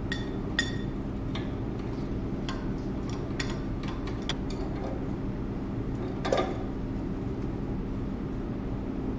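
Steel wrenches clinking and ticking irregularly against a threaded fitting as it is tightened back onto the air compressor's outlet line, with a louder clank about six seconds in. A steady low machine hum runs underneath.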